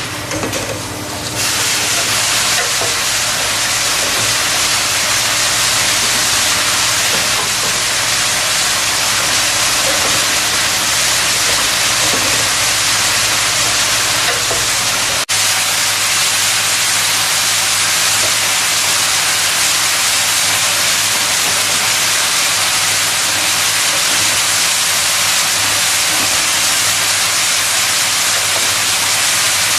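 Roofing-nail collator machine running: a steady, loud hissing machine noise over a low hum. About halfway through the sound briefly drops and the hum changes, as at a cut between shots of the running machinery.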